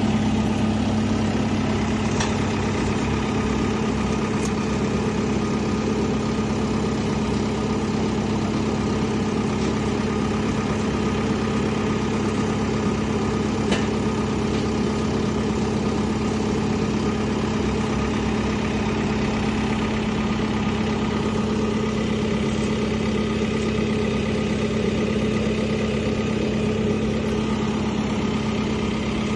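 JCB 505-20 telehandler's diesel engine idling steadily, with a few faint clicks over the hum.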